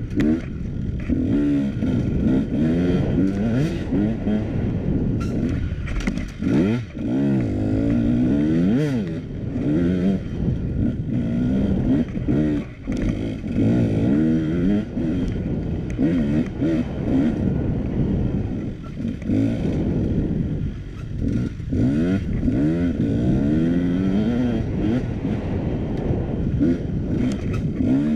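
KTM dirt bike engine revving up and down under constant throttle changes while riding off-road, its pitch rising and falling every second or two and briefly dropping off a few times. Occasional knocks and rattles as the bike hits bumps.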